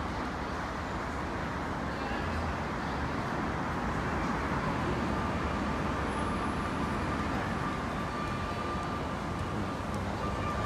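Steady city traffic noise: a constant low rumble and rush of passing vehicles. A faint thin whine comes in about halfway through.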